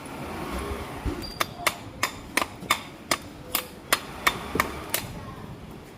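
About a dozen sharp metallic taps, roughly three a second, starting about a second and a half in and stopping about a second before the end: a hand tool knocking on metal.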